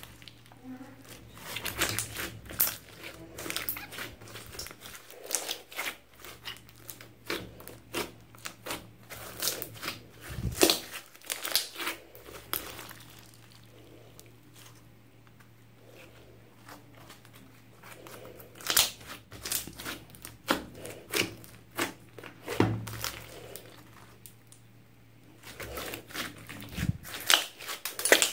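Hands kneading and squeezing a large lump of mixed slime studded with foam beads, with irregular sticky squelches, pops and crackles. It goes quieter twice, while the slime is being pulled out and stretched.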